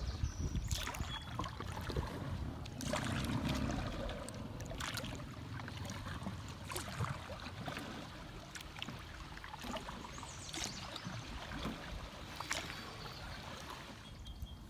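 Kayak paddle strokes in lake water: irregular splashes, drips and trickling off the blades, over a low rumble.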